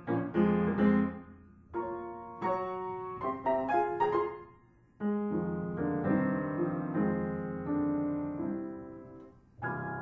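Background piano music: struck notes and held chords in short phrases.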